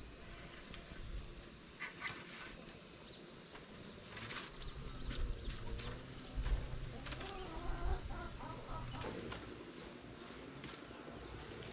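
Insects droning in one steady high tone, with a couple of low thumps about six and a half and eight seconds in.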